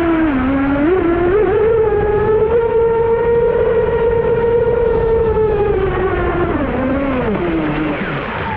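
Radio-controlled speedboat's electric motor whining at speed, with water and wind hiss beneath. The pitch wavers with throttle changes in the first second or so, holds steady, then falls away near the end as the boat slows or runs off.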